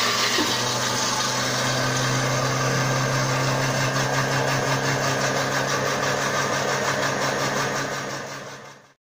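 Countertop blender motor running steadily at speed, puréeing mango into a smooth curry sauce. The sound fades away near the end.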